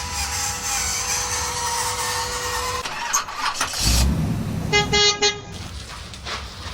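A horn sounds a long held tone, then gives a quick string of about five short toots about five seconds in. A low rumble comes just before the toots.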